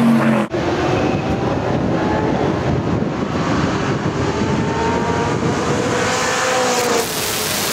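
A close pack of Ford GT40 racing cars running past, many V8 engines overlapping and rising and falling in pitch over each other. About half a second in, a single engine note cuts off suddenly and the sound of the pack takes over.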